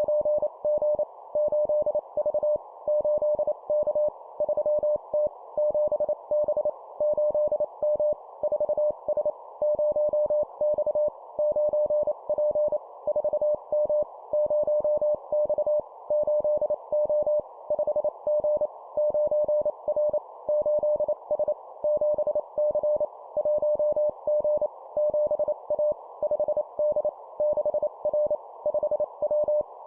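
Morse code (CW) sent at 25 words per minute: a single beep tone, pitched a little below 1 kHz, keyed rapidly on and off into dots and dashes, spelling out short two-character words of letters and numbers. A steady hiss runs underneath.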